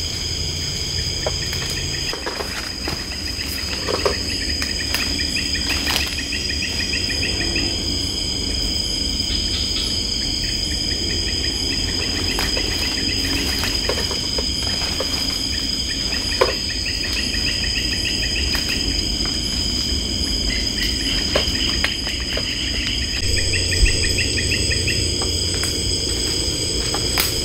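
Night chorus of rainforest insects: several steady high-pitched drones, joined at times by a pulsing chirp call that starts and stops in runs of a few seconds. A few brief crackles of feet or hands in the undergrowth.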